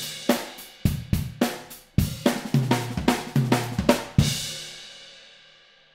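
Acoustic drum kit with Meinl cymbals playing a fast fill of drum strokes with bass drum under it. It ends about four seconds in on a crash cymbal hit that rings and fades out.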